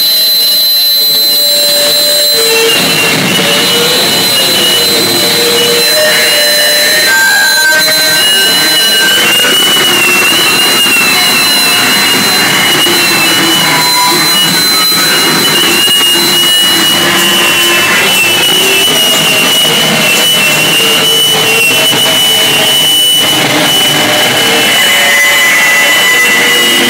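Harsh electronic noise music played through effects pedals: a loud, dense roar with wavering, squealing feedback tones on top. A high steady whine holds for about the first two-thirds, then drops out.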